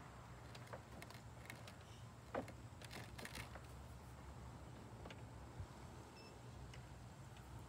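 A few faint clicks and light knocks over a low steady outdoor rumble, the sharpest click about two and a half seconds in and a small cluster just after three seconds.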